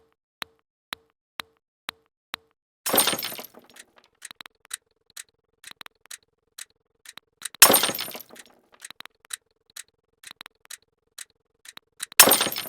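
Glass-breaking sound effect, a sharp shatter that tails off in tinkling, played three times about four and a half seconds apart. Short sharp clicks tick between the crashes.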